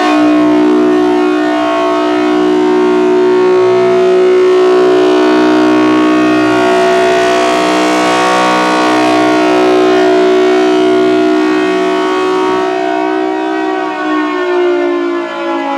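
Federal Signal Thunderbolt 1000T outdoor warning siren with its blower, sounding a loud, steady wail at full blast as it rotates. Near the end its pitch starts to fall as it begins to wind down.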